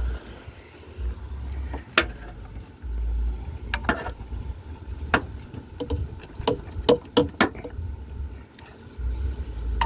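Sharp metallic clicks and clanks of hand tools on the engine, about eight separate knocks, as a 3/8 ratchet is worked onto the serpentine belt tensioner. Bursts of low rumble come and go underneath.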